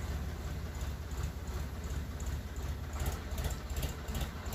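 Tractor engine running with a low steady rumble as it reverses a loaded farm trailer.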